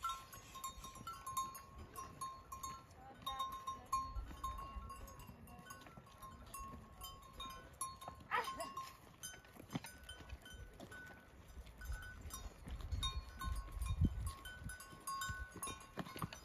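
A herd of goats moving about, with one louder call about eight seconds in and faint thin ringing tones that come and go throughout.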